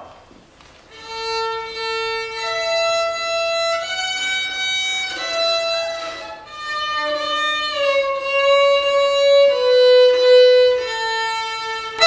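Half-size violin played by a beginner: a slow run of long bowed notes, about a dozen of them, each held a second or so, with some notes sliding slightly in pitch.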